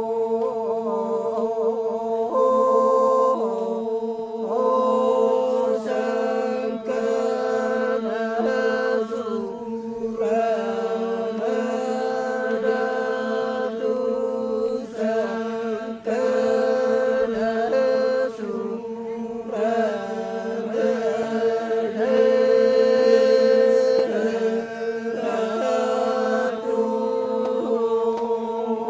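Group of men chanting the Toraja ma'nimbong in unison over a steady held drone note, the melody above it moving in long phrases with short breaks between them.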